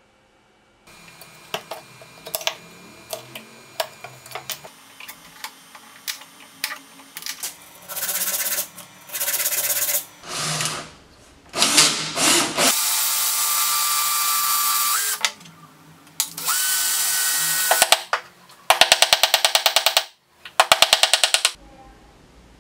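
A Skil Masters cordless drill, spinning a wooden dowel in its chuck, runs in several bursts. The longest run has a steady whine that steps up in pitch just before it stops, and two stretches of fast, even pulsing come near the end. Scattered clicks and knocks come first.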